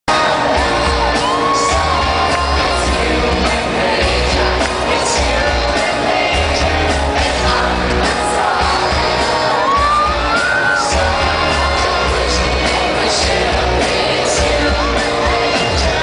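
Live pop concert music heard from within an arena crowd: a band with a heavy bass line and a woman singing into the microphone, with fans shouting and whooping close by.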